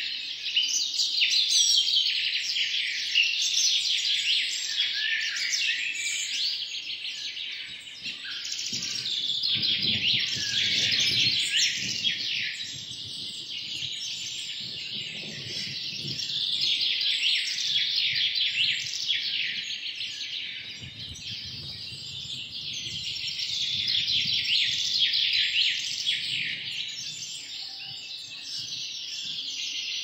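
Many small birds chirping rapidly in a dense, continuous chorus of high cheeps, with a few stretches of low rustling noise underneath.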